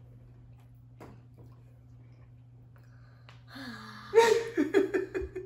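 A young boy's long, wavering cry, starting after about three and a half seconds of quiet and pulsing rapidly at one high pitch, as he reacts to a bite of hot chocolate lava cake.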